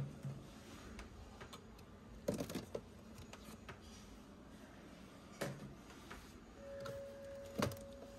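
Plastic food containers knocking and clattering as they are taken out of a refrigerator and set down on a counter: a few separate knocks a couple of seconds apart. A faint steady tone comes in near the end.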